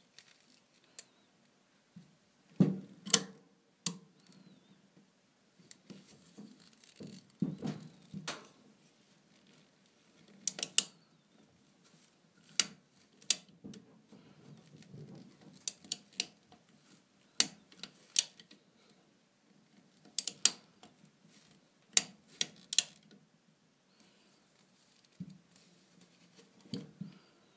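Colt Trooper .22LR revolver's action worked by hand: sharp metallic clicks, many in pairs about half a second apart, with soft rustling of the gun on cloth between them.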